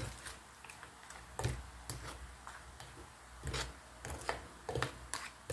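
A spoon clicking and scraping against a bowl as it stirs a thick, wet batter of grated sweet corn and glutinous rice, in irregular strokes a little over one a second.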